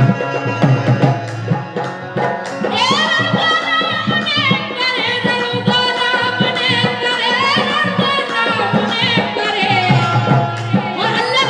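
Live Bundeli rai folk music through a PA: a male voice sings a wavering, gliding melodic line over fast hand-drum beats. The drumming is heaviest near the start and again near the end.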